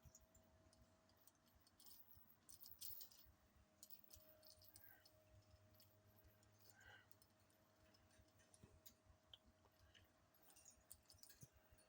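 Near silence: faint scattered clicks and light rattles over a faint steady hum.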